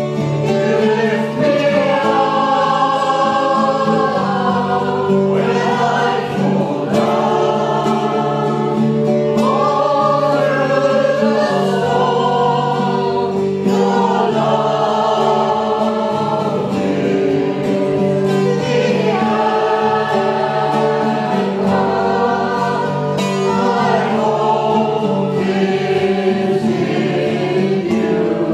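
Worship song sung by a group of voices, led by a woman and a man, over strummed acoustic guitars, in phrases that run on without a break.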